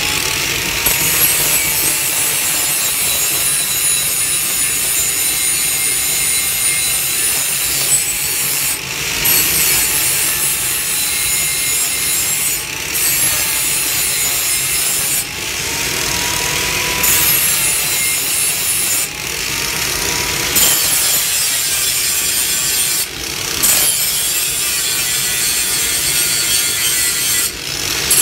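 Angle grinder grinding the edges and bevels of a hand-forged steel spatula, a steady loud hiss over a motor whine that dips and recovers in pitch as the disc bears on the metal. The grinding breaks off briefly every few seconds as the disc is lifted and set back on the steel.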